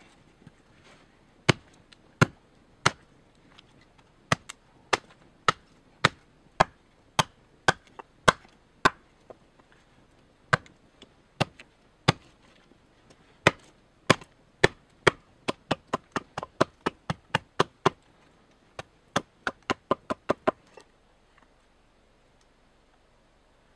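Small axe splitting a birch billet into kindling on a log chopping block: dozens of sharp chops, about one or two a second, that quicken into fast strokes toward the end and then stop.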